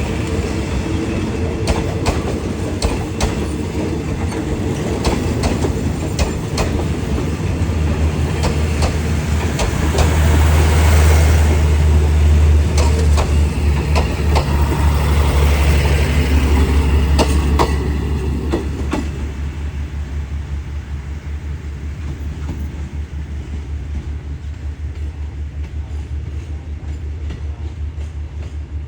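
Diesel-hauled passenger train moving through a station: wheels clicking over rail joints, with a deep engine hum that grows loudest in the middle, then drops off to a quieter, evenly pulsing rumble.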